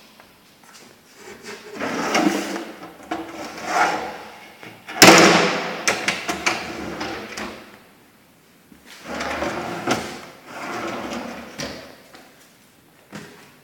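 Kitchen cabinet drawers being slid open and shut several times, with a sharp knock about five seconds in, the loudest sound, followed by a rattling slide.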